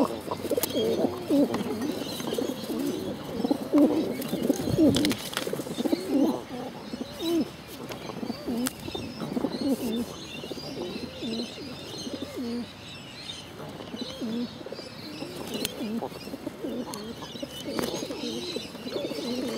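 Pigeons cooing close up, many short rolling coos overlapping one after another, with a few brief sharp taps about five seconds in.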